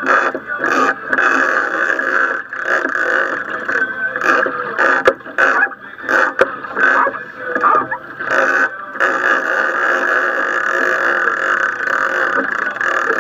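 Steady noise of a small boat at sea, with irregular knocks and splashes.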